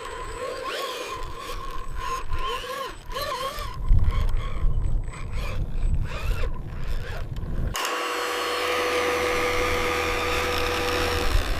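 Small electric motors of radio-controlled construction models whining, the pitch wavering up and down as they work, with low rumbling and knocks. About eight seconds in the sound changes abruptly to a steady motor whine.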